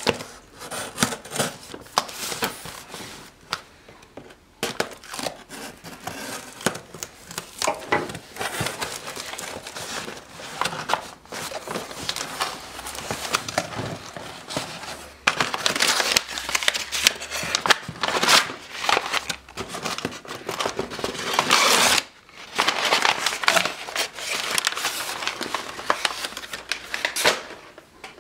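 Plastic and paper packaging crinkling and tearing as a parts kit is unboxed, with many small sharp clicks of handling, pausing briefly twice.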